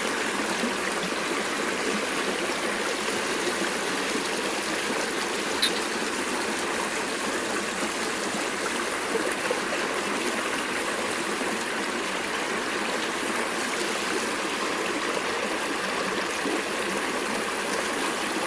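Creek water flowing, a steady babbling rush, with one faint short click about six seconds in.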